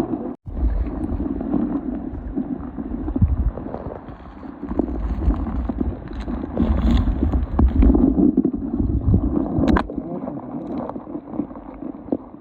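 Wind buffeting the microphone in uneven gusts over a steady noisy rumble, with a few sharp knocks.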